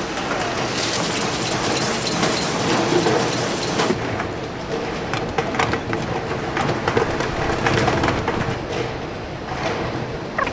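A PET bottle blow-moulding line running: plastic preforms and bottles clattering along rails and conveyors with a dense, steady rattling and knocking. A loud hiss runs for about three seconds near the start.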